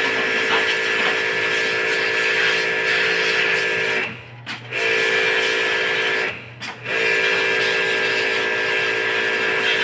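A small electric motor running with a steady hum and hiss. It stops briefly twice, about four seconds and about six and a half seconds in, then starts again each time.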